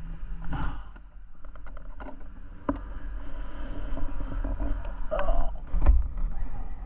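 Snowmobile engine running as a low, steady rumble, with a few sharp knocks on top.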